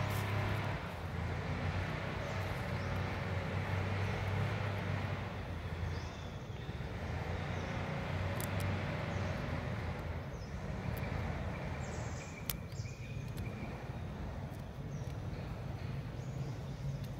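Steady outdoor background noise with a low hum, with a few faint short high-pitched sounds and clicks in the middle.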